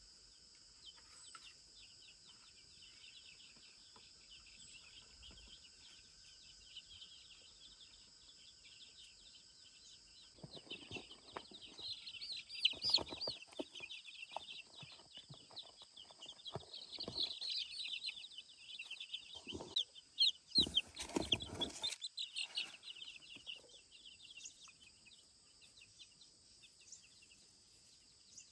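A brood of young black chicks peeping, many short high cheeps at once. The peeping grows much louder and busier about ten seconds in, then dies back again near the end. Mixed in are scattered light knocks and a rustle as the chicks are let out of their cardboard box.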